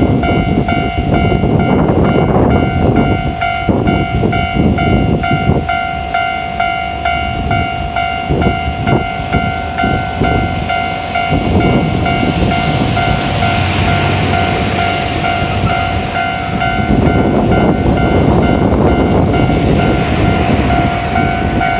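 Level-crossing warning bell ringing in a fast, even ding-ding rhythm, with heavy haul trucks rumbling through the crossing. The hiss of tyres and engine swells twice as trucks pass.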